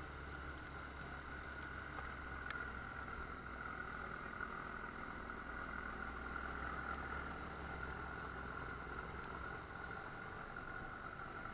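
Steady running noise of a vehicle on the move: engine and road sound holding an even pitch, with one short click about two and a half seconds in.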